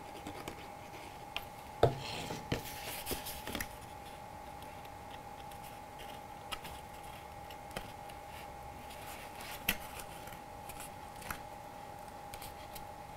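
Cardstock being handled: scattered crisp paper rustles, scrapes and small taps as glued tabs are folded and pressed into place, busiest about two to three seconds in. A faint steady hum runs underneath.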